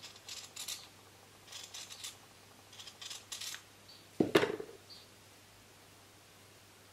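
Scissors snipping through thin fabric cloth in several short runs of cuts, followed by one louder thump about four seconds in.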